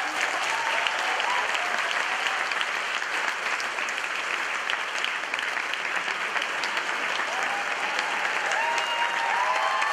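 Audience applauding steadily, with a few faint voices over the clapping near the end.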